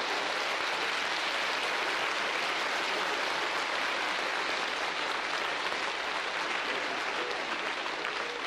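Large seated audience applauding: a long, steady round of clapping that begins to thin near the end.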